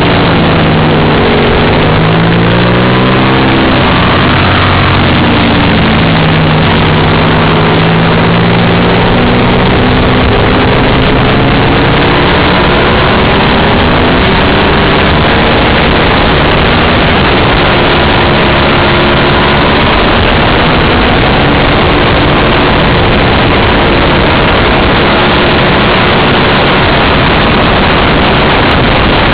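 Racing motorcycle's engine heard from a camera mounted on the bike at speed, its pitch climbing and dropping again and again as it revs through the gears, under heavy, steady wind noise on the microphone.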